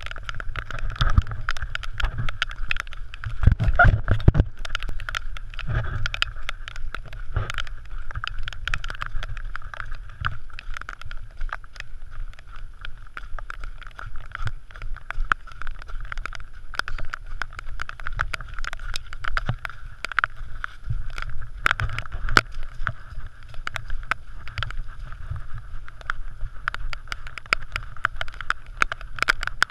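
Muffled running noise through a GoPro Hero 3's waterproof housing: a trail runner's footfalls and the camera knocking and jostling over a steady hiss and rumble, with the heaviest thumps in the first few seconds.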